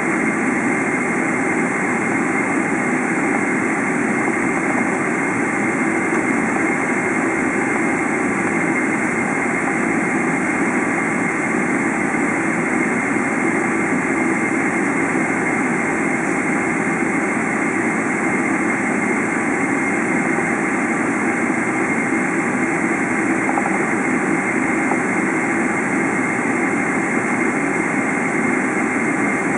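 Boeing 777-300's turbofan engines running at low taxi thrust, heard from inside the cabin: a steady rumble and hiss with a thin, high, even whine.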